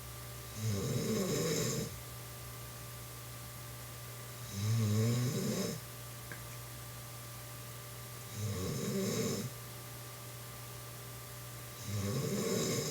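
A woman snoring in her sleep: four snores, each about a second long, coming about every four seconds.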